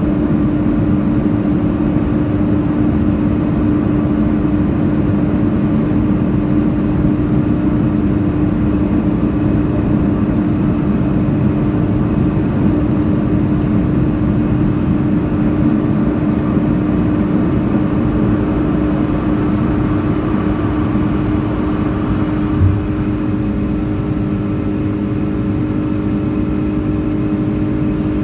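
Cabin noise of an Airbus A330-300 climbing just after takeoff: a steady rush of engines and airflow under a constant hum. A brief low thump comes about three-quarters of the way through, after which the noise eases slightly.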